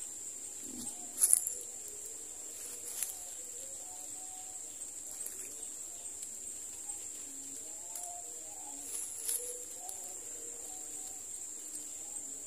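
A steady, high-pitched insect drone, with faint, scattered low chirping calls. A short, sharp knock stands out about a second in, with smaller ones later.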